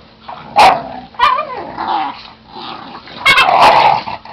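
Puppies and their mother dog growling and yipping as they wrestle in play, in several short bursts, the loudest cluster about three seconds in.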